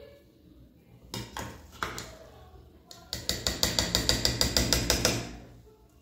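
A metal ladle knocking and scraping against the inside of an aluminium pressure cooker as cooked rice is turned over. A few separate knocks come first, then about two seconds of quick, even clattering at some ten strikes a second.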